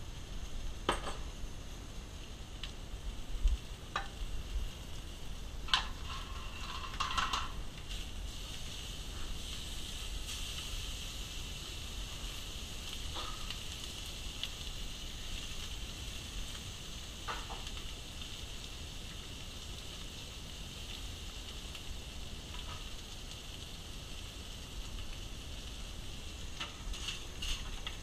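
Food sizzling in a hot pan, a steady hiss that swells in the middle, with a few scattered knocks and clinks of pans and utensils.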